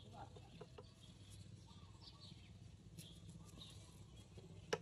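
Knife chopping small fish on a wooden chopping block: two faint knocks under a second in and one sharper chop near the end. Faint bird chirps in the background.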